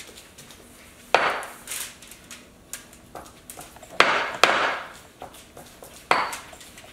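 Spatulas and spoons stirring a thick mashed-banana and cereal dough in mixing bowls. There are a few sharp scrapes and knocks against the bowl sides, about a second in, twice around the middle and once near the end, with lighter clicks between.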